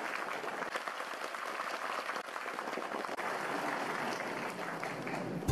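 Audience applauding, a dense steady clapping that cuts off abruptly at the end.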